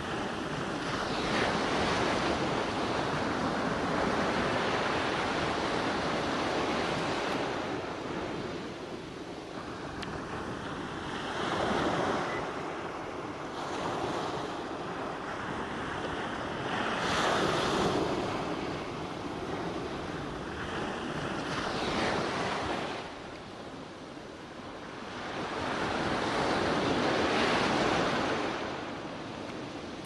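Ocean surf: waves rushing in with a steady hiss. Several surges each swell and fade over a few seconds.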